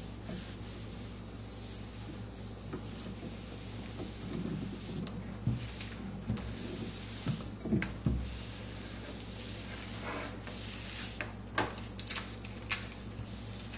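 Electric clothes iron sliding back and forth over paper, a soft rubbing swish, with a few light knocks as it is set down or shifted; it is heat-setting dry-mount adhesive film under a protective sheet.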